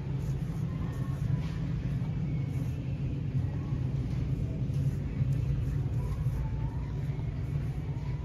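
A steady low rumble, with faint thin tones drifting in and out above it.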